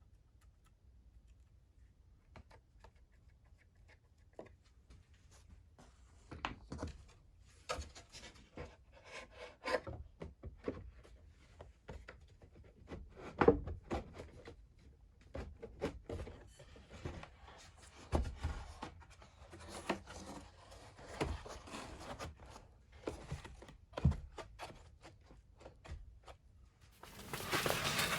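Near silence, then irregular light knocks, clicks and rubbing from wooden parts being handled at the workbench, with a few louder knocks.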